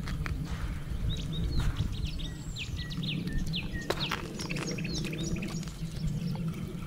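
Birds chirping: runs of short, high, downward-sliding notes, over a steady low rumble.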